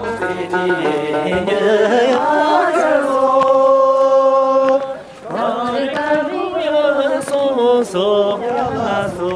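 A single voice singing a slow, chant-like melody in long held notes that slide between pitches, breaking off briefly about halfway through.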